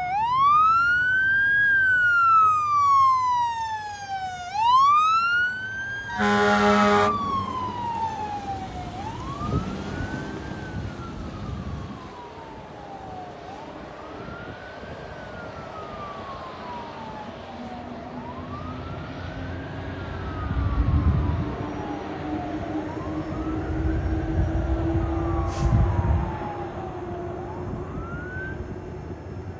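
Fire department water tender's wail siren rising and falling slowly, with one short horn blast about six seconds in. The siren fades steadily as the truck drives away down the road.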